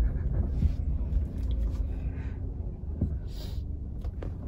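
Low, steady rumble of a Suzuki car's engine and tyres heard from inside the cabin as it moves along slowly.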